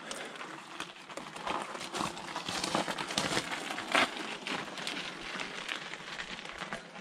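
Loaded mountain bike tyres crunching and rattling over loose gravel and rocks, a dense run of irregular small clicks with a sharper knock about four seconds in.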